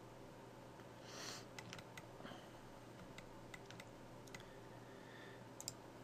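Faint scattered clicks of a computer mouse and keyboard being worked, over a low steady hum, with a brief soft rush of noise about a second in.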